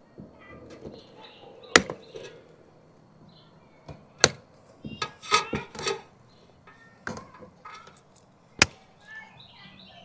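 Cutters snipping through the old DirecTV satellite cables one by one: three sharp snaps a couple of seconds apart, with smaller clicks and handling noise between them.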